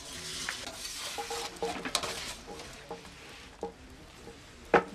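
Wood fire crackling and hissing in a bread-baking oven, with light scrapes and clinks and one sharp knock near the end.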